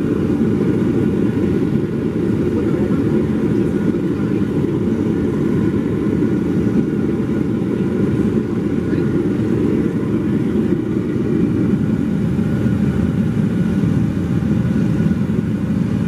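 Propane burner firing into a small refractory-brick furnace used to melt aluminum for casting: a steady, low rushing noise of the flame that stays at an even level.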